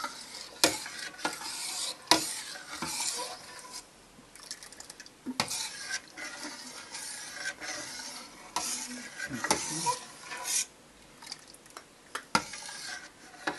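A spoon stirring a thick, thickening grape-must pudding in a stainless steel pot, scraping the bottom and sides in uneven strokes, with a sharp knock against the pot every few seconds.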